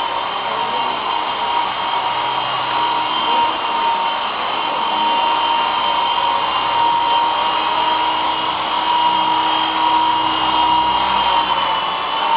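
Small radio-controlled helicopter (GT 5889) in flight: its motor and rotors give a steady whine whose pitch wavers slightly as the throttle shifts.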